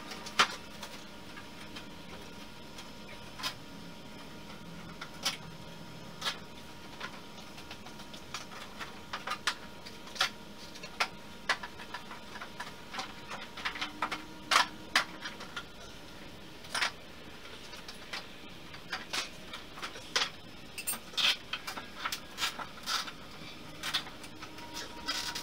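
Irregular sharp clicks and knocks, coming in quick clusters in the second half, from hand work at the joints of plywood stitch-and-glue boat panels.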